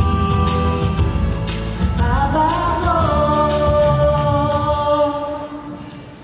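A woman singing a Tagalog ballad into a microphone over a backing track, holding a long final note from about two seconds in; the music then fades out near the end.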